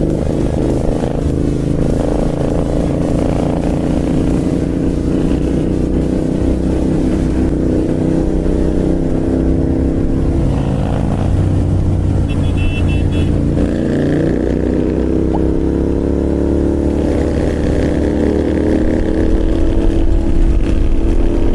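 Royal Enfield Continental GT 650's parallel-twin engine with a slip-on exhaust running under throttle on the move, its pitch rising gradually as the bike accelerates.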